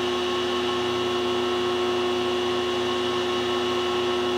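Steady hum of a powered-up but idle Kitamura CNC machining centre, its cooling fans and electrics running: an even hiss with several steady tones and no cutting or axis motion.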